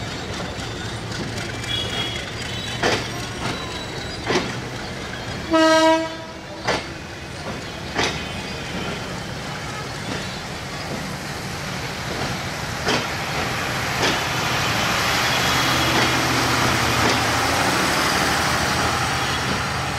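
Passenger train rolling past, its wheels knocking now and then over rail joints, with one short horn blast about six seconds in. The rumble and hiss of the passing coaches swell from about twelve seconds in.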